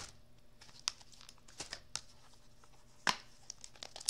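Faint rustling and crinkling of clear plastic stamp packaging being handled, with a few light clicks, the sharpest about three seconds in.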